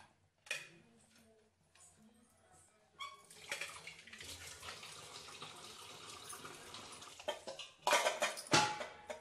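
Fish curry gravy bubbling and sizzling in the pan, a steady hiss that starts about three seconds in. Near the end come a few loud knocks and clatter, as of something striking the pan.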